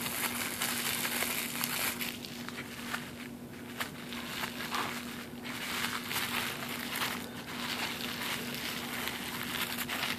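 Plastic bubble wrap crinkling and crackling as it is handled and lifted out of a box, a continuous run of fine crackles.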